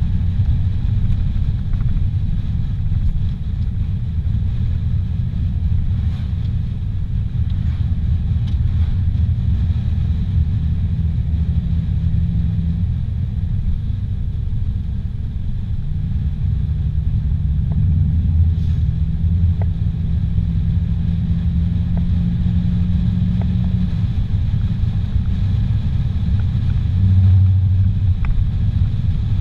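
Car driving on a paved highway, heard from inside the cabin: a steady low drone of engine and tyre noise, with a faint engine hum that comes and goes.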